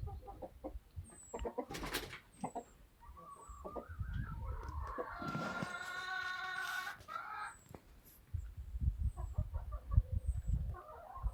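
A rooster crows once, a long call starting about three seconds in and lasting around four seconds, with hens clucking before and after it. Bursts of low rumbling noise come and go underneath.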